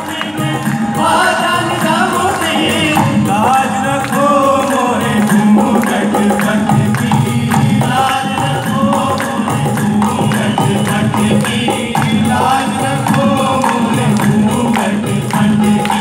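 Live qawwali: a group of male voices singing together in chorus over rhythmic percussion and instrumental accompaniment, heard through the hall's sound system.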